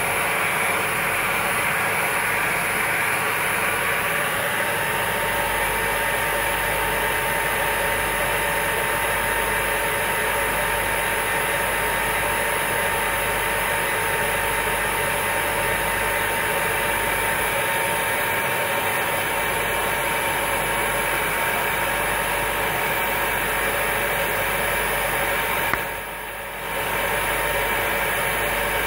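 Hand-held hair dryer running steadily: a continuous blowing hiss of air with a thin, steady motor whine under it. The level dips briefly near the end, then returns.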